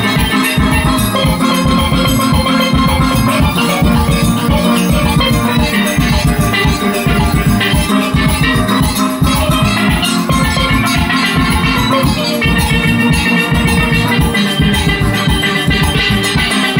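Single-pan steelband playing live: many steel pans ringing out a melody and chords over a steady drum and percussion beat.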